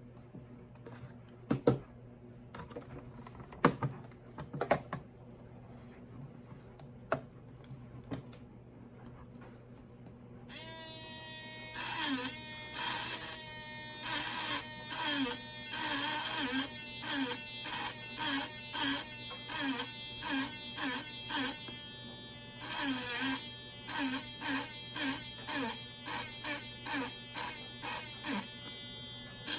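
A few scattered clicks and knocks of handling, then about ten seconds in a cordless engraving pen starts buzzing. It runs in short repeated strokes, its pitch dipping as the tip bears on the padlock to engrave initials.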